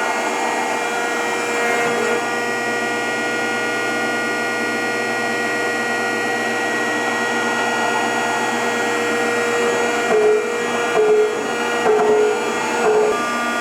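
Rockford 36-inch hydraulic planer's hydraulic drive running with a steady hum and whine made of several fixed tones, the machine's first run after some 30 years in cold storage. About ten seconds in come four short, louder pulses of a tone, roughly one a second, while the table is reported to be getting tight and possibly short of lubrication on one side.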